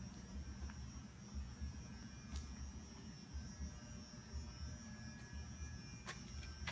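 Low, steady background hum with a faint high whine over it, and a couple of faint clicks.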